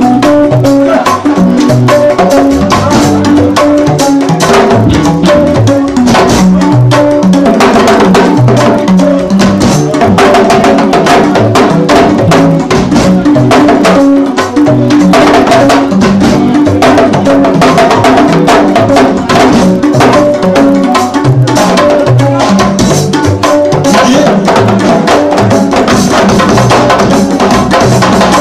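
Sabar drums struck with a stick and the bare hand, playing fast, dense rolling patterns over a band with a stepping bass line.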